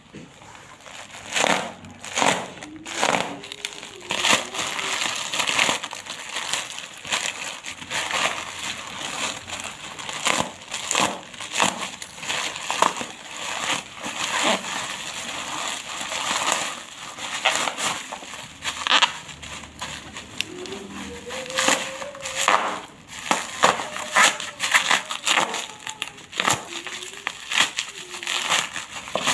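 Plastic packaging being crinkled and torn open by hand: a long, irregular run of rustling and crackling.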